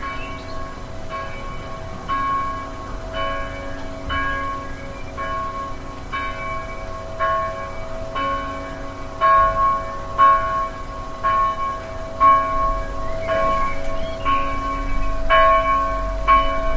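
Church bell tolling, struck about once a second, each strike ringing on into the next.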